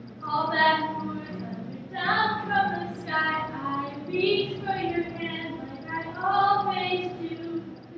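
Women singing a musical-theatre song with no instruments, in several phrases of held notes.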